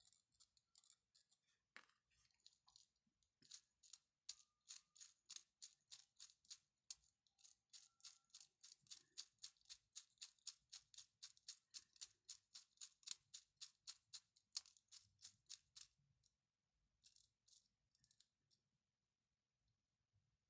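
Faint plastic ratchet clicking from a 3D-printed mechanical counter as its wheels are turned by hand, a steady run of light clicks about four a second that stops near the end.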